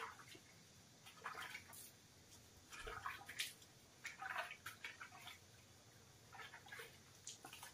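Water splashing and sloshing in a plastic bucket as a cat is washed by hand, in faint, irregular bursts.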